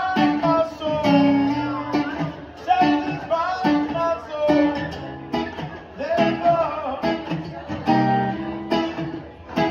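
A man singing over a cutaway acoustic guitar strummed in a steady rhythm, with long held, sliding vocal notes.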